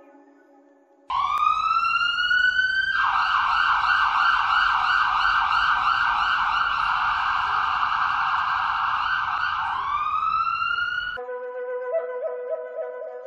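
Emergency-vehicle siren: a rising wail, then a fast yelp repeating about three times a second, then another rising wail, cut off suddenly near the end.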